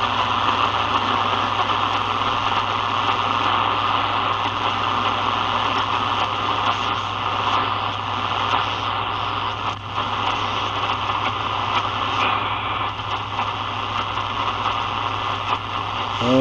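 Sony ICF-7601 portable shortwave radio playing steady static hiss with a low hum through its speaker while tuned on its lowest shortwave band.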